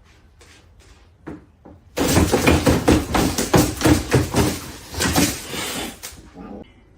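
A rapid, loud series of knocks and bangs: a few faint taps at first, then about four seconds of dense clattering that dies away near the end.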